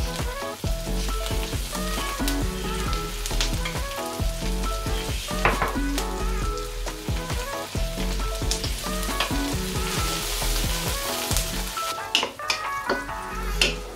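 Chopped onion and garlic sizzling in oil in an enamel wok, with a wooden spoon scraping and knocking against the pan as spoonfuls of peanut butter are stirred in.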